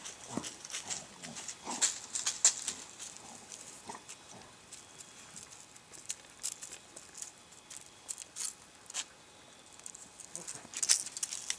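Dry grass crackling and rustling under a large dog as it rolls and squirms on its back, in scratchy bursts that are busiest in the first three seconds and pick up again near the end as it gets up and moves.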